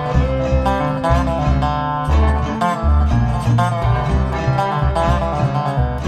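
A live band playing an acoustic song, plucked strings over a steady, driving bass line.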